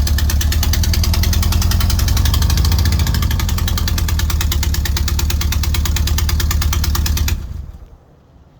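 Van engine running with a fast, even clatter of sharp ticks over a low hum, the weird noise it is making; the engine cuts off about seven seconds in.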